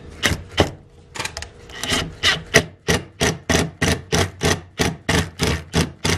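Hand screwdriver turning a screw through a wooden plaque into a skull, each turn giving a short rasping click. The clicks are irregular at first, then settle after about two seconds into an even rhythm of about four a second.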